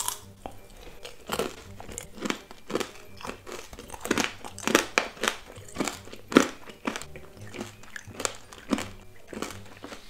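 Crunching and chewing of tanghulu: the hard candied sugar shell on green grapes cracking between the teeth, a sharp crunch about every half second.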